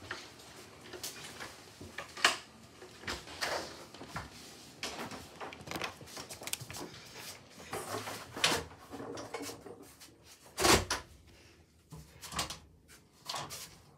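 Scattered knocks, bumps and rubbing from someone moving about and handling things in a small room, with one louder thump about eleven seconds in.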